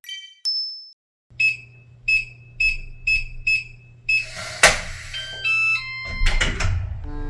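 Electronic beeps from a kitchen appliance's control panel: a short chime, then six short high beeps about two a second over a steady low hum. A clatter follows, then a brief run of stepped tones.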